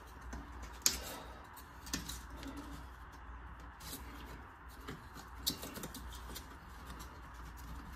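Thin wooden shims being slid and pressed into the gap between a door jamb and the wall framing: faint scraping with a few sharp clicks, the loudest about a second in and another about five and a half seconds in.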